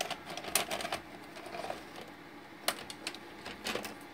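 VHS cassette being pushed into the cassette housing of a Panasonic NV-FS 88 S-VHS VCR opened for repair: a string of sharp plastic and metal clicks and clatters from the tape and the loading mechanism, in a cluster at the start and again in the second half, over a faint steady hum.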